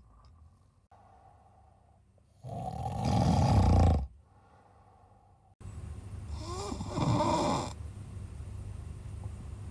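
A man snoring heavily in his sleep: two loud snores, about two and a half seconds in and again about six and a half seconds in, the second with a wavering pitch. The snoring comes from obstructive sleep apnea, which he later has treated with soft-palate surgery.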